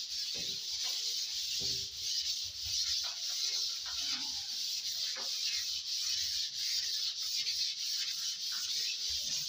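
Hand sanding of wall putty on a ceiling with 180-grit waterproof sandpaper, two people sanding at once: a steady, continuous rubbing hiss.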